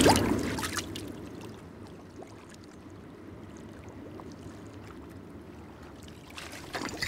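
A fishing float splashes into still lake water, followed by soft, quiet water lapping. Near the end, liquid gurgles in a glass whiskey bottle as it is tipped up to drink.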